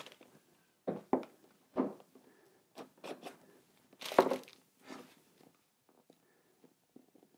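Cardboard packaging being handled and opened by hand: a series of short scrapes and rustles as a white card box is turned over and its lid worked open, the loudest about four seconds in, then only faint ticks.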